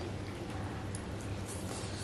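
Faint slurping and chewing of noodles: several short, wet sucking sounds over a steady low hum.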